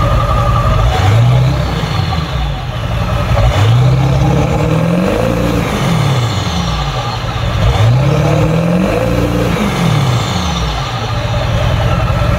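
Vehicle engine revving, its pitch rising and falling several times.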